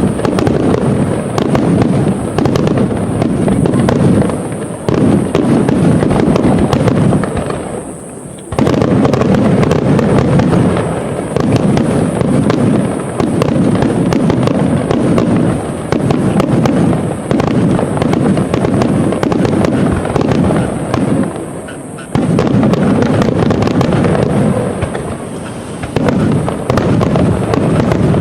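Large aerial fireworks display: a loud, dense barrage of rapid, overlapping shell bursts. It eases off briefly twice and then resumes abruptly.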